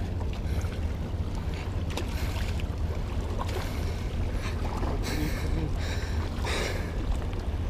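Water lapping and sloshing close to the microphone, with a steady low wind rumble on the mic. A few short splashy hisses come about five and six and a half seconds in.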